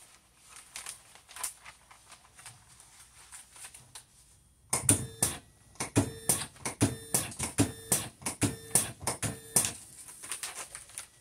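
Videojet DataFlex Plus 6420 thermal transfer overprinter running a test print: after faint ticking, a quick run of sharp clicks starts about halfway through, about three or four a second, with a short motor whine between them. It runs cleanly, its motion fault cured by a new linear slide and timing belt.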